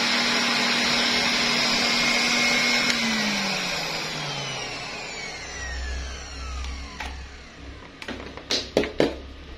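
Aeolus Cyclone TD-901T pet grooming blower running with a steady motor whine and rush of air, then spinning down about three seconds in with a falling whine as the motor coasts to a stop. A few sharp knocks near the end.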